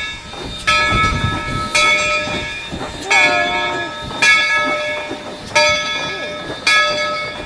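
A steam locomotive's bell ringing steadily, one clang about every second and a bit, each one ringing on and fading before the next.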